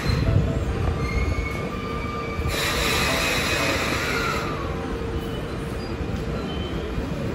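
Sotetsu 20000 series electric train pulling into the platform and slowing to a stop, with thin high squealing tones from wheels and brakes. A burst of hiss comes about two and a half seconds in and lasts about two seconds, then a short falling whine.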